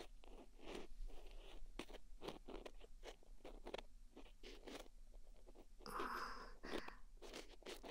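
Earpick scraping and scratching inside an ear close to the microphone: irregular crackly strokes, a few a second.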